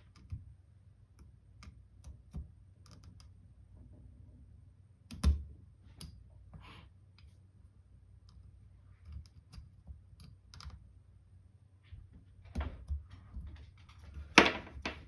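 Scattered light clicks and taps of a Springfield 1911-A1 pistol's slide stop and frame being worked with a small tool during reassembly. A sharper knock comes about five seconds in, and the loudest click near the end.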